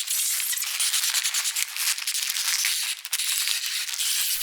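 Playback of layered foley for a mutating, exploding rat: dense crackling, crunching and wet squelching made with mashed green noodles and a cabbage. It is a continuous mass of small clicks and crackles with no low end.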